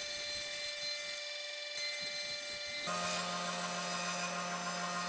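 CNC router's HITECO spindle running at high speed with its bit cutting through plywood: a steady whine over the hiss of the cut. About three seconds in the sound changes abruptly, a lower hum joining and the whole getting louder.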